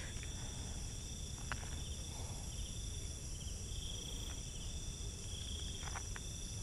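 Crickets and other night insects chirring steadily in several high, unbroken tones. A pulsing trill swells in and out several times, and a few faint clicks are heard.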